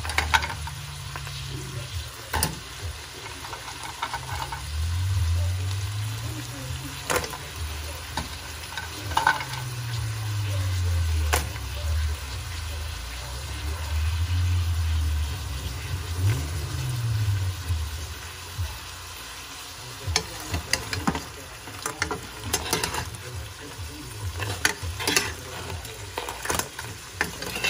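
Whole blue crabs sizzling in butter and garlic in a large stainless steel pot, with frequent knocks and clatter of the shells against the metal as they are stirred and turned. The knocking grows busier in the last several seconds.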